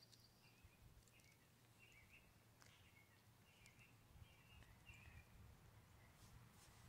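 Near silence: quiet outdoor ambience with faint, short bird chirps scattered through the first five seconds.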